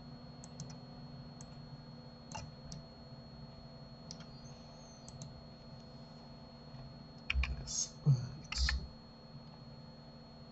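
Computer mouse clicks and keyboard key presses, sparse at first, then a quick cluster of louder clicks and knocks about seven to nine seconds in, over a faint steady high whine.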